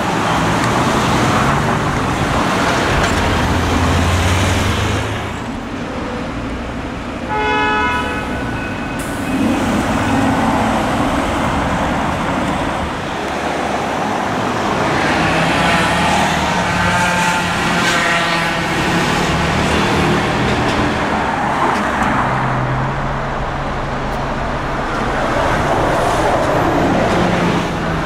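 Street traffic with car engines running and passing, and a short car horn toot about eight seconds in.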